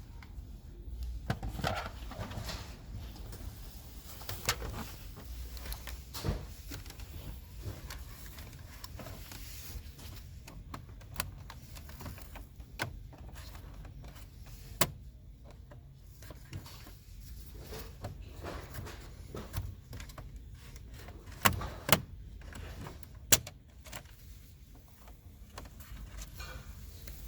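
Scattered clicks, taps and knocks of plastic interior trim around the gear shifter of a Range Rover Sport's centre console being picked out at the sides and pressed and pulled up, with three sharper snaps about three-quarters of the way through.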